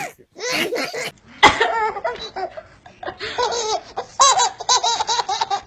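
Babies laughing in quick repeated bursts of giggles, with a sharp click about a second and a half in.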